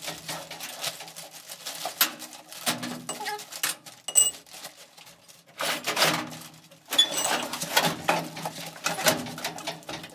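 Metal parts and hand tools clanking and clinking, irregular knocks mixed with short metallic rings.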